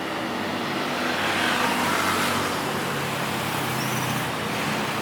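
A motor vehicle passing close by, swelling to its loudest about two seconds in and then fading, over steady road traffic noise.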